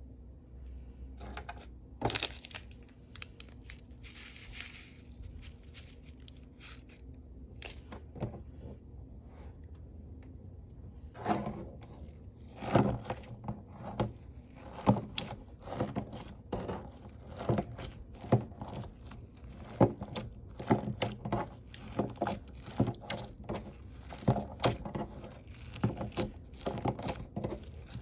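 Clear slime being worked by hand with glitter mixed in, giving off irregular sticky clicks and pops. The pops come thick and fast from about eleven seconds in. Before that there are only a few clicks and a short hiss.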